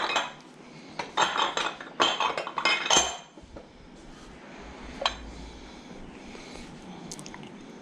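Glass and ceramic dishes clinking against each other as they are picked up and put down, in two short flurries, then a single light clink a couple of seconds later.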